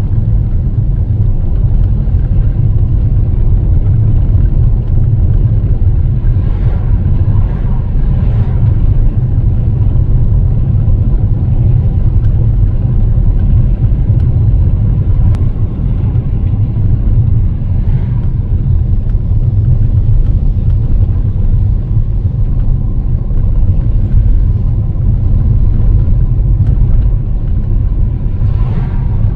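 Loud, steady low rumble of a car on the move.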